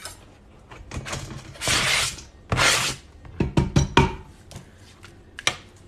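Diced onion scraped off a cutting board into an Instant Pot's metal inner pot: two short scraping rushes, followed by a run of light knocks and clicks as the board and knife are handled.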